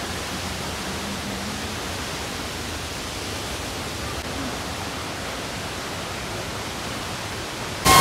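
Steady, even rush of a waterfall heard from the forest path, with no distinct events. Near the end it jumps abruptly to a much louder rush of water.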